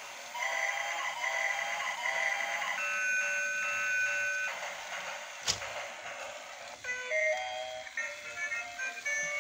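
Tinny electronic jingle from a battery-operated transforming robot-train toy's small speaker: a simple beeping melody that starts about half a second in. A single sharp click comes midway through.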